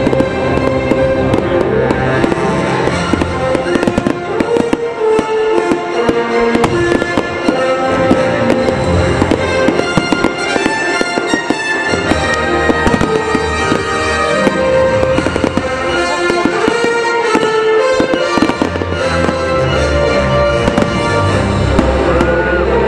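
Fireworks display going off, with many bangs and crackles that are thickest in the middle, over loud music playing throughout.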